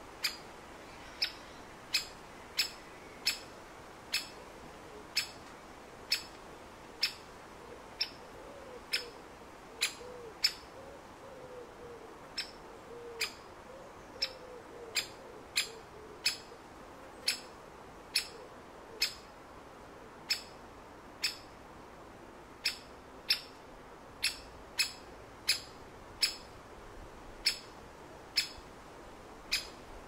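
Great spotted woodpecker giving its sharp single-note 'kik' call over and over, a little under once a second, with a faint low cooing bird in the background for part of the time.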